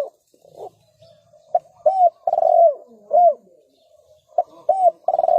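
Spotted dove cooing loudly. Its phrase is a short note, an arched note, a long rolling note and another arched note, given once in full, with the next phrase starting near the end.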